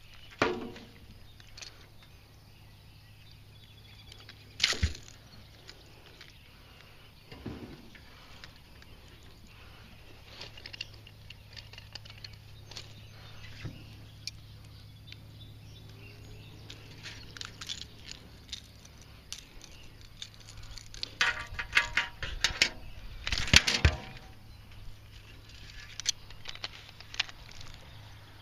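Handling noise: scattered clicks, knocks and rattles of a lip-grip fish scale and tackle being handled close to the microphone, with a busier run of rattling a little over twenty seconds in.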